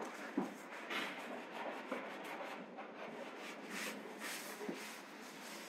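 Faint rustling and scuffing of plastic sheeting being brushed aside, with a few soft, irregular knocks.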